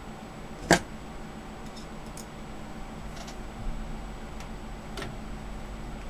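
One sharp metallic click about a second in, then a few faint ticks, from a tool handled against a thin steel computer case, over a steady low hum.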